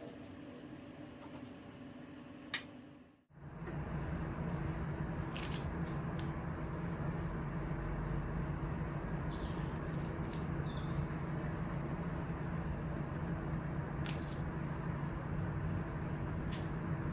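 A knife cuts through a rolled puff-pastry log on a plastic cutting board, with one sharp tap of the blade about two and a half seconds in. After a brief silent break, a steady low hum and hiss runs on, with a few soft clicks as pastry slices are set down on a baking tray and faint high chirps.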